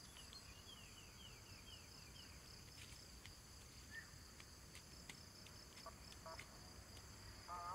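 Near silence over a steady, high-pitched insect chorus of trilling crickets. About eight short falling chirps sound in quick succession in the first two seconds, and a few faint clicks follow later.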